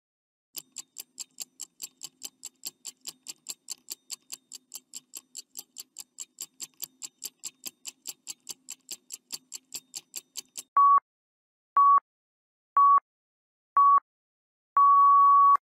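Countdown timer sound effect: clock ticking quickly and evenly, about four or five ticks a second, for some ten seconds. Then four short, loud beeps about a second apart and one longer final beep, signalling that the time is up.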